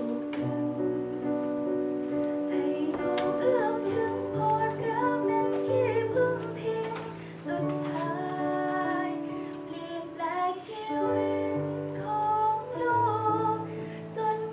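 Young woman singing a slow devotional song into a handheld microphone, with long held notes, over an instrumental accompaniment with sustained bass notes.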